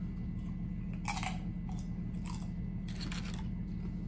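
Close-up chewing of a tortilla chip, crunching in a few short bursts about one, two and three seconds in, over a steady low hum.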